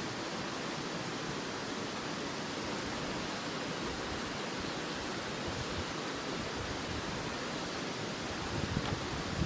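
River water rushing steadily, with a few soft low thumps near the end.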